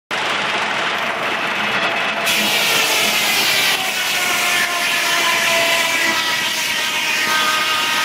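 Large circular sawmill blade spinning and cutting into a log on the carriage: a continuous loud mechanical sound that turns brighter and harsher about two seconds in, with a whine of several tones slowly falling in pitch.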